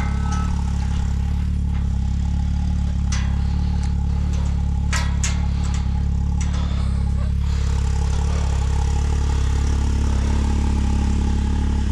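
Can-Am Maverick side-by-side's engine running at a steady speed, with a few sharp clatters in the middle.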